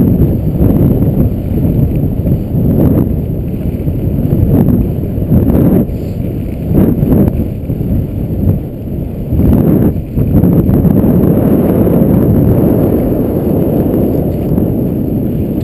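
Loud, gusting wind rushing over an action camera's microphone during a fast ski descent, with the scrape of skis carving on groomed snow coming through in brief surges.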